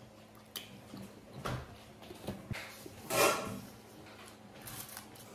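Eating sounds of people eating steamed chicken momos: chewing and lip smacks with scattered small clicks and taps, and one louder, short breathy rush about three seconds in.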